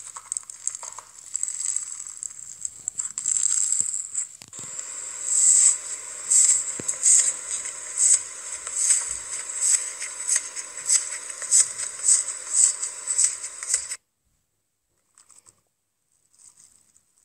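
Slime being pressed by hand and then scooped with a spoon, giving a crisp crackling. From about five seconds in the crackles come in a regular series, about one a second. They cut off abruptly near the end, leaving only a few faint crackles.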